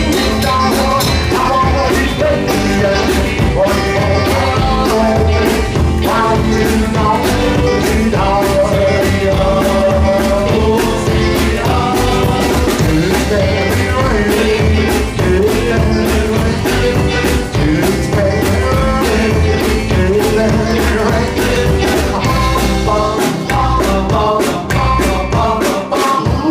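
Rockabilly band playing live: a rock and roll song with drums and sung vocals, loud and steady throughout.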